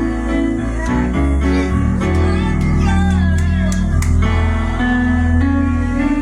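Live church band music: guitar over held bass notes, with a few sharp percussive hits in the middle.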